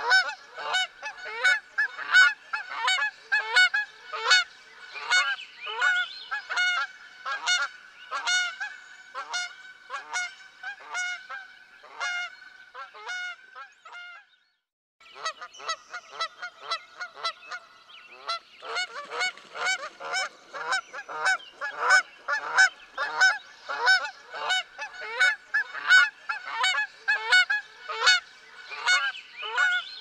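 A flock of geese honking: many overlapping, rapid calls, several a second, with a brief silent break about halfway through before the honking resumes.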